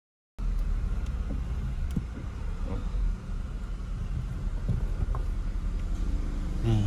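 Steady low rumble of a car on the move, engine and road noise, starting abruptly after a brief silence.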